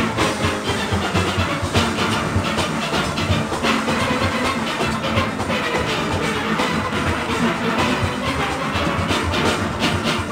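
Steel orchestra playing: many steelpans together over drums and percussion, with a steady, driving beat.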